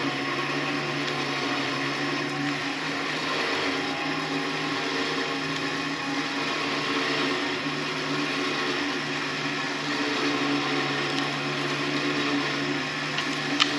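An electric motor runs steadily under load with an even whine, and there is a single sharp click near the end.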